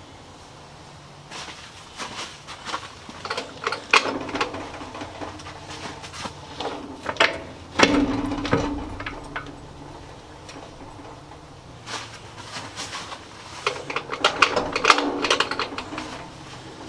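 Metal clinks, taps and knocks of bolts, washers and nuts being handled and fitted to a Ford 8N tractor's wheel rim, with a heavier thump about eight seconds in and a run of quick rattling clinks near the end.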